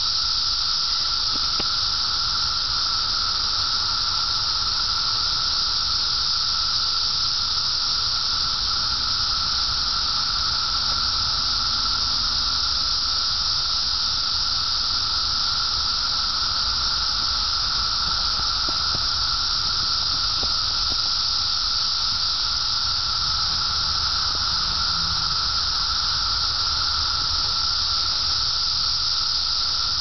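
Cicadas singing in chorus: a steady, unbroken high buzz.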